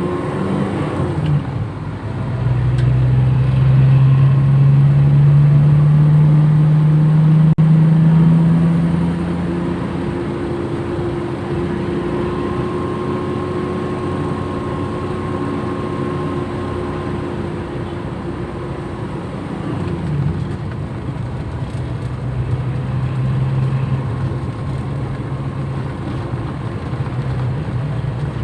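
Toyota Kijang engine pulling under load while driving, with a steady, slowly rising engine note over road noise. The note is loudest for the first nine seconds or so, eases off about ten seconds in, then builds again near the end.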